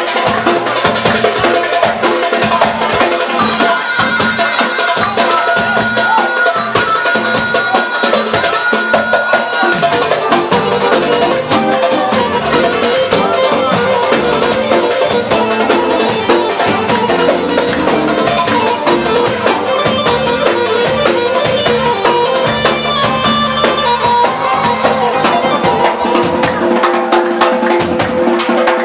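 Loud Arabic dance music with a steady drum beat under a held melody line.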